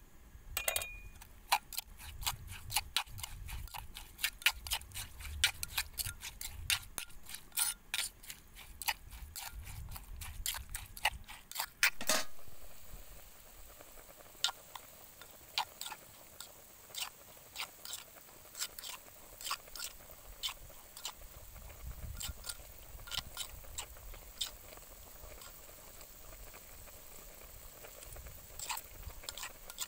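Utensils clicking and scraping against a clay mortar as the chili and shallot sauce is mixed, many quick knocks a second, ending in a louder knock. Then a large aluminium pot of water boiling hard, bubbling with scattered pops.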